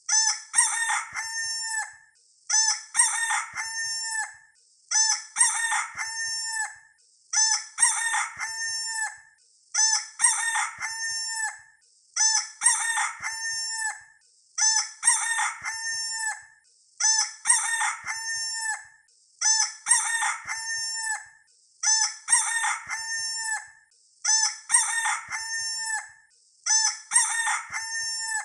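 Rooster crowing over and over, a sound-effect loop: the same cock-a-doodle-doo, ending in a long held note, repeats about every two seconds.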